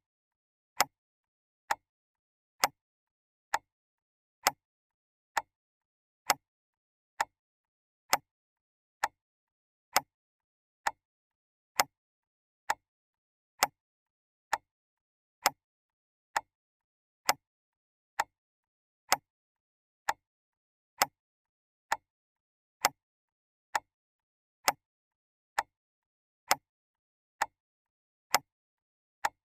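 Clock ticking steadily, one sharp tick a little faster than once a second.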